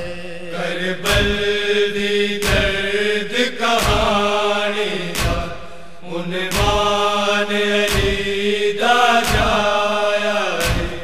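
Wordless chanting voices of a noha held over a steady drone, with a single deep beat about every second and a third keeping the lament's rhythm.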